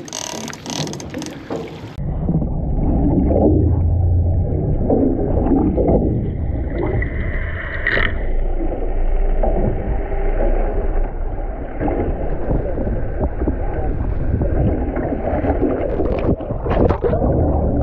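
Muffled low rumble of boat engines and water around the hull. About eight seconds in, a brief whine sweeps upward.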